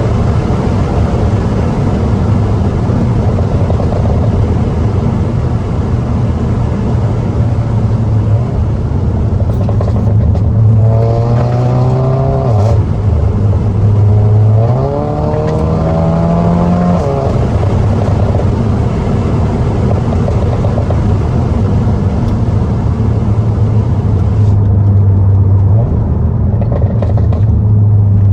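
SEAT Cupra's turbocharged four-cylinder engine, exhaust opened up with a downpipe and resonator delete, running at steady revs under way. About ten seconds in it accelerates with the pitch rising, drops back briefly at a gear change, then pulls up again before settling back to a steady note.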